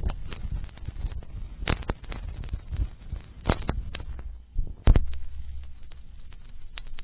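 Phonograph cylinder surface noise: a low rumble and crackle with scattered sharp pops, the loudest about five seconds in.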